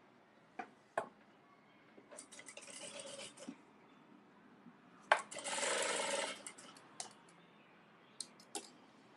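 Cloth rustling and small handling clicks, then a short burst of an industrial sewing machine stitching for just over a second, starting abruptly about five seconds in.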